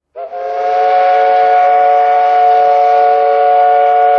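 Steam whistle of the paddle steamer Kaiser Wilhelm sounding one long, loud blast, a steady chord of several tones that starts sharply just after the beginning.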